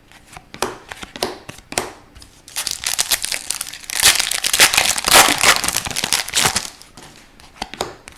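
Crinkling and rustling of card packaging as trading cards are handled, the crinkling thick through the middle, with light clicks and taps before and after.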